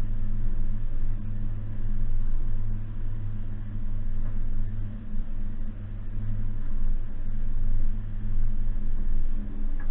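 A 2019 Suzuki Jimny's 1.5-litre four-cylinder petrol engine and drivetrain running while driving, a steady low drone whose loudness rises and falls, with a couple of faint knocks.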